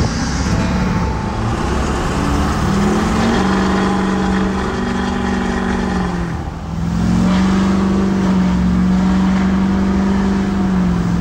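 6.6 L LLY Duramax V8 turbodiesel with a 5-inch straight-pipe exhaust, heard from inside the truck's cab while driving. The engine note climbs in pitch as it accelerates, dips briefly about halfway through, then holds a steady drone.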